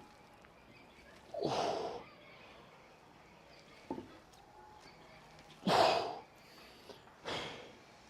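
A man breathing hard from exertion: three loud, forceful exhales with a light knock between the first two.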